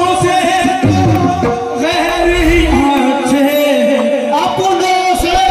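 Ghazal music: a singer's voice bending and sliding in pitch over a steady held accompaniment note, with low drum beats in the first half.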